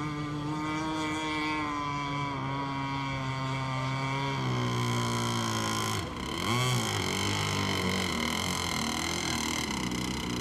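Radio-controlled speedboat's motor running at speed, a steady buzzing note that drops in pitch about four seconds in, then wavers up and down as the boat turns.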